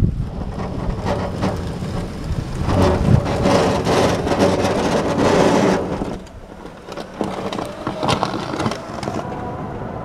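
Battery-powered garden tractor pushing snow with its front plough blade: snow scraping and crunching under the blade and tyres, loudest as it passes close about three to six seconds in, then fading.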